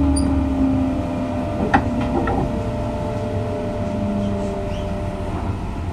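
Running sound of a 201 series electric train, chopper-controlled, heard from inside the car: a low rumble with steady hums and a whining tone that slides slowly down in pitch. Two sharp clicks come about two seconds in.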